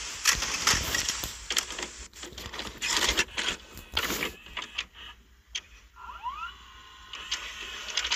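Crackling static with dense clicks and hiss, the noise of a VHS tape starting playback, thinning out about halfway through; a short rising whine sounds about six seconds in.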